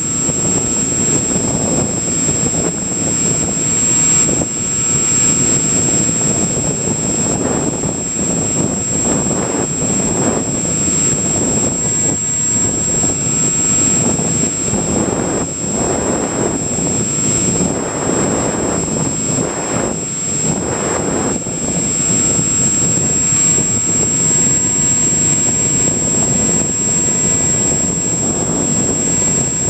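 Onboard sound of a Multiplex EasyStar model plane in flight: air rushing over the microphone along with the electric motor and pusher propeller running. The rush swells and fades repeatedly, and a thin, steady high whine sits over it.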